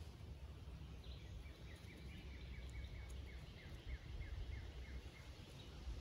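A bird singing a run of about a dozen short, evenly spaced notes, some three a second, that stops shortly before the end, over a low rumble on the microphone.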